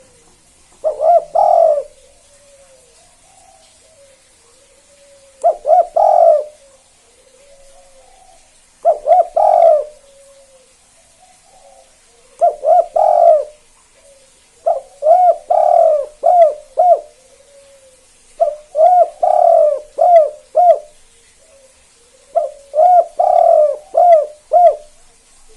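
Spotted dove (tekukur) cooing: seven loud phrases of several short coos each, one every three to four seconds, with softer low coos between them. The later phrases run longer.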